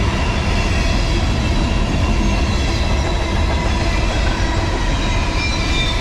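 Freight cars rolling past on the rails: a steady, loud rumble of steel wheels on track, with faint high-pitched wheel squeals drifting in and out.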